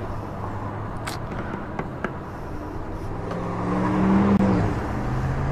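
Honda CB500F parallel-twin motorcycle engine idling steadily, then rising in pitch and loudness about three seconds in as it pulls away. The note drops back about a second and a half later.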